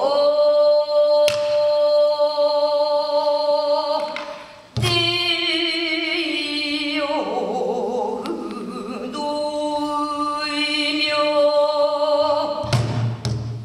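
A female pansori singer sings long held notes, her pitch wavering in places, accompanied by a few strokes on a buk barrel drum.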